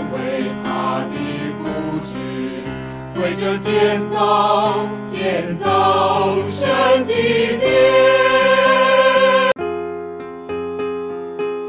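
A choir singing a Chinese hymn to keyboard accompaniment. The singing cuts off abruptly about nine and a half seconds in, leaving a keyboard playing alone.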